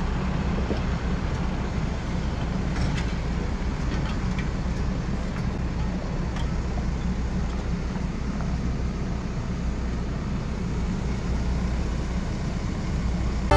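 Large diesel forklift's engine running steadily with a low drone as it carries a steel beam on its forks, with a few faint knocks.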